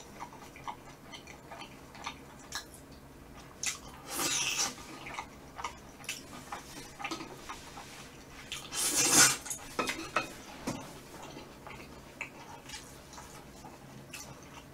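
Close-up eating sounds: metal chopsticks clicking and scraping against a metal pan, and chewing. There are two louder bursts of mouth noise, about four and nine seconds in, and the second is the loudest.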